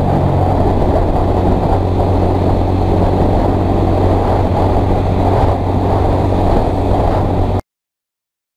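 Honda CBR125's single-cylinder engine running at a steady cruise, under a dense rush of riding noise on the helmet microphone. Near the end the sound cuts off suddenly to dead silence.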